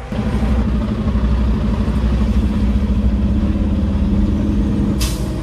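Peterbilt truck's diesel engine running at a steady pitch, with a short hiss about five seconds in.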